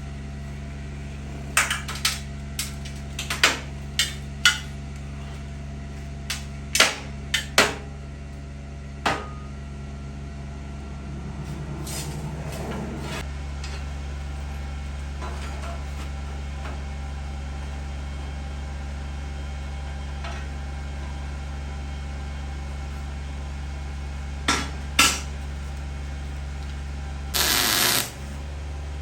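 Metal parts clanking and being knocked together a dozen or so times, sharp separate hits mostly in the first third, over a steady low machine hum. Near the end comes a single hissing, crackling burst of about a second.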